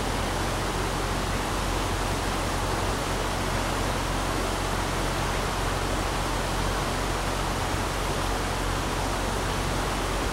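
A rocky trout stream rushing steadily over riffles: an even, unbroken wash of water.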